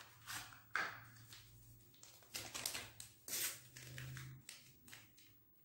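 A small paper sachet of flan powder being handled and torn open: a few short, faint crinkles and snaps spread over several seconds.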